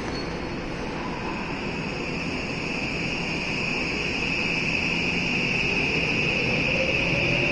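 Subway train at the platform with its motors starting up, a steady high hum growing louder and a whine that rises in pitch from about five seconds in as the train begins to move.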